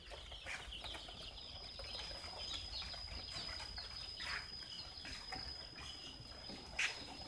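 A brooder full of young kampung chicks peeping: a faint, scattered chorus of short high chirps, with a thin steady high whine behind it.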